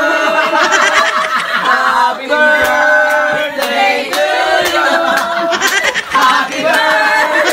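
A small group of people singing together without accompaniment, a birthday song sung to someone presented with a cake with lit candles.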